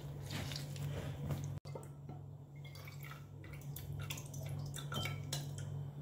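An orange half squished on a ceramic citrus reamer, then fresh orange juice dripping and trickling through a mesh strainer into a glass, with a steady low hum underneath.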